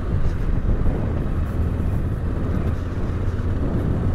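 Yamaha Ténéré 700's parallel-twin engine running steadily while cruising at about 40 km/h on a sandy dirt track. Heard from the rider's seat as a low, even rumble with no changes in pace.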